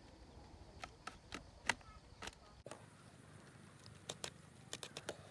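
Bamboo strips clicking and ticking as they are bent and tucked into the top of a woven bamboo doko basket: a dozen or so quiet, scattered clicks.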